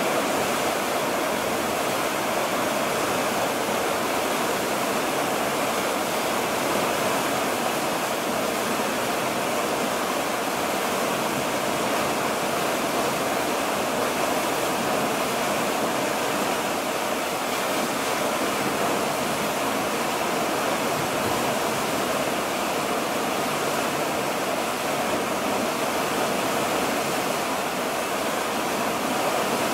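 Steady, even rush of water streaming along the hull of a ship under way.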